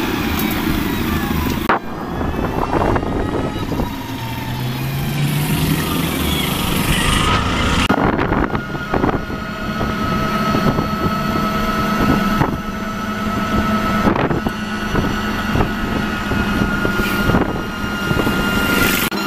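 Vehicle running along a road, heard from on board: steady engine and road noise, with a steady whine coming in about seven seconds in. The sound changes abruptly several times.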